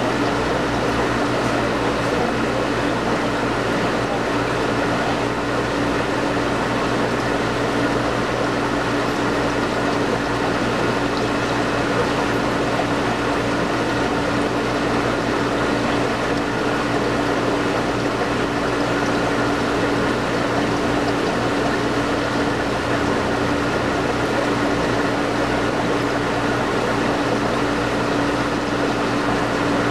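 Steady mechanical hum with water noise from aquarium air pumps and filters, holding one constant low tone.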